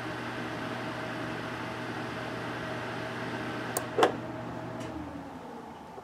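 Small cooling fan on a Peltier module's heatsink running with a steady hum. About four seconds in, the thermostat's relay clicks off and the fan winds down, falling in pitch: the cooler has reached its 6 °C cut-off temperature.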